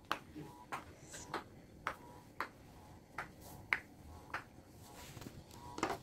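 Bubbles of a silicone Pop It fidget toy being pressed one after another, each giving a short, sharp pop; about a dozen irregular pops, roughly two a second.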